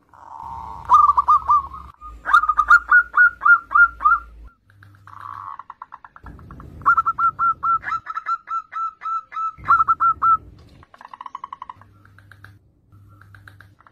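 Zebra dove (perkutut) cooing in its staccato song: several phrases, each opening with a short buzzy trill and running into a quick series of clipped coos, with brief pauses between phrases and a fainter phrase near the end.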